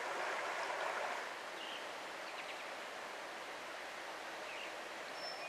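Small stream's water running over a shallow stony riffle, a steady rush that softens a little about a second in, with a few faint bird chirps.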